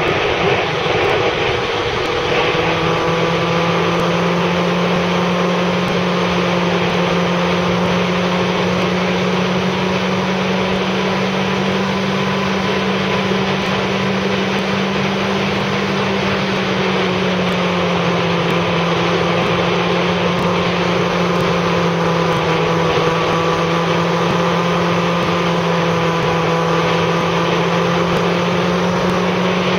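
Motorcycle engine running at a steady cruise under a constant rush of wind and road noise. The engine pitch steps up about two seconds in, sags slightly around the middle, and climbs again near the end.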